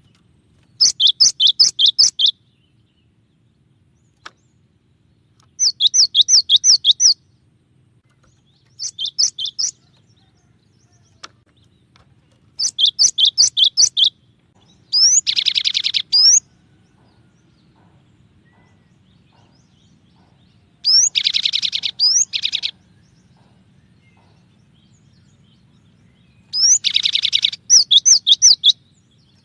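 Cinereous tit (gelatik batu) singing in seven loud bouts a few seconds apart. Each bout is a quick run of repeated high two-note whistles, and several also carry a harsh buzzing rattle. A faint low hum lies underneath.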